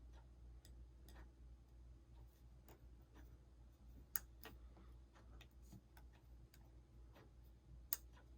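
Faint ticks and taps of small parts being handled, with two sharp clicks about four seconds in and near the end, as the display's flex-cable connectors are pressed onto the iPhone 6 logic board until they click into place.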